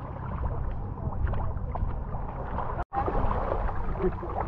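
Shallow seawater sloshing and lapping around the wading camera, with a low rumble underneath and small splashy clicks; the sound cuts out for an instant about three seconds in.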